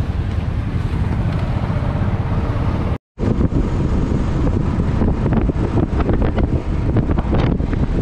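Motorcycle engine and road noise picked up by a helmet camera, with wind buffeting the microphone. The sound cuts out completely for a moment about three seconds in, then comes back while riding along the highway, with heavier, gusty wind noise.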